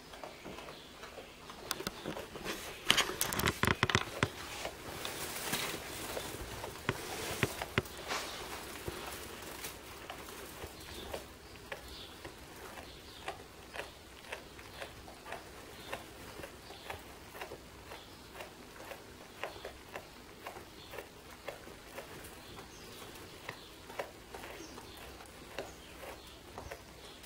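Kangaroo joey chewing grass: a steady run of small crunching clicks, about two a second. A few seconds in there is louder rustling of hay and fabric.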